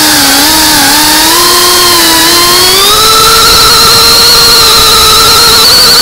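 FPV quadcopter's brushless motors and propellers whining, heard from the drone's onboard camera. The pitch climbs a little about two and a half seconds in and then holds higher as throttle is added.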